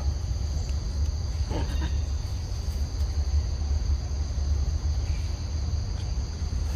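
Steady insect chorus, a continuous high trilling in two pitches, over a constant low rumble, with one short sound about a second and a half in.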